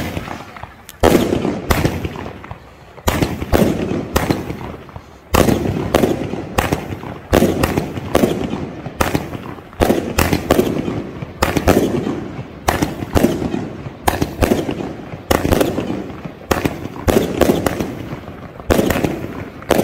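Salute firework battery firing a rapid series of loud bangs, about one to two a second, each followed by a short rolling echo.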